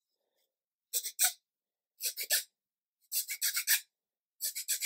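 Small hand file rasping in short strokes along the edge of a laser-cut fiberboard part, smoothing off the leftover attachment nibs. The strokes come in quick bursts, two, then three, then runs of five or six, with short pauses between.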